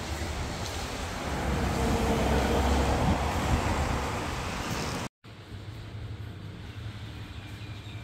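Steady outdoor rumble that swells for a couple of seconds and then eases off. It cuts off abruptly about five seconds in, giving way to a quieter background.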